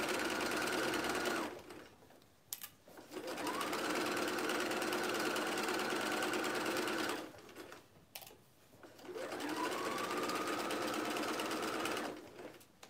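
Electric domestic sewing machine stitching a curved seam in three runs with short pauses between them. Each new run starts with a brief rising whine as the motor speeds up, and a single click falls in each pause.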